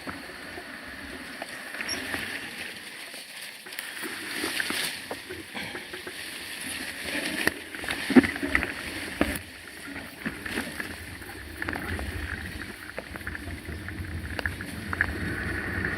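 Mountain bike ridden over a rough dirt trail: tyre noise and rattling with scattered knocks, one sharp knock about halfway through. A low rumble builds in the last few seconds.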